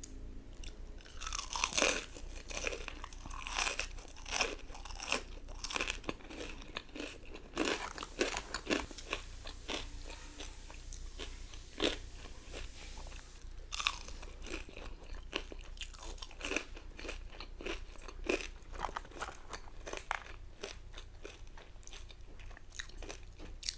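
A person biting, crunching and chewing crisp fried food (Dave's Hot Chicken or re-toasted fries), with many quick crunches and a short lull about ten seconds in.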